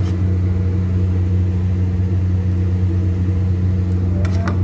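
A steady low electric motor hum is the loudest sound, with breaded cauliflower frying in a pot of oil and sizzling beneath it. A sharp click comes right at the start, and a brief scrape comes near the end.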